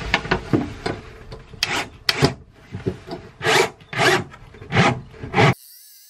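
Cordless drill boring into plywood in a series of short bursts, each one a coarse rasping of the bit in the wood. It stops abruptly near the end.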